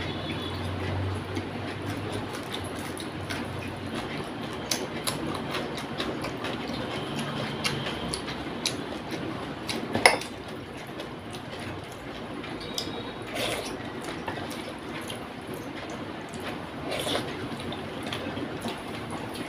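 Rice being mixed by hand on a plate and eaten: wet squishing and chewing with many small clicks, one sharper click about ten seconds in.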